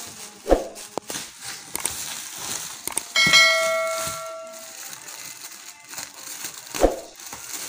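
Plastic wrapping rustling and crinkling as it is cut open with scissors. A little over three seconds in, a bell-ding sound effect rings out and fades over about a second and a half. Two short sharp knocks come about half a second in and near the end.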